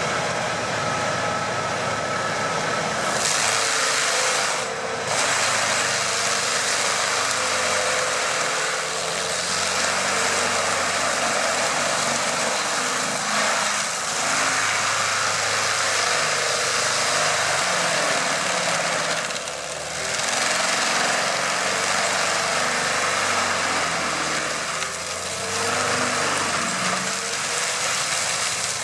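AHWI M650 forestry mulcher on a tractor grinding a tree stump: the rotor's teeth chewing through wood make a dense, steady grinding noise over the tractor engine working under load. The grinding eases briefly three times as the load drops.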